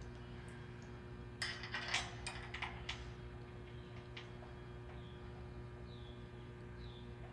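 A quick run of metallic clicks and clatter about a second and a half in, lasting about a second and a half, from hinge fasteners being handled and started by hand, over a steady electrical hum. In the second half, faint short falling chirps repeat about once a second.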